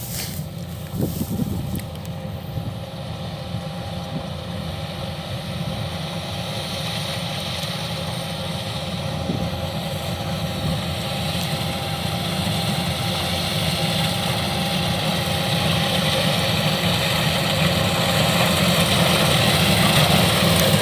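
Kubota DC-105X combine harvester's diesel engine running steadily as the machine cuts rice, its drone mixed with a hiss of machinery and growing gradually louder.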